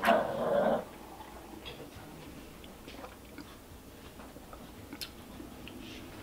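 A loud slurp of leftover cereal milk drunk from a plastic bowl, lasting under a second at the start, followed by only faint small clicks.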